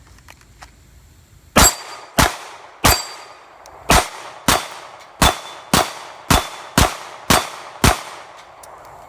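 Eleven shots from a Glock 23 Gen 4 pistol fitted with a Lone Wolf .40-to-9mm conversion barrel, firing 9mm steel-case ammunition. The shots are sharp and fired at a steady pace of about two a second, starting about a second and a half in, each ringing out briefly.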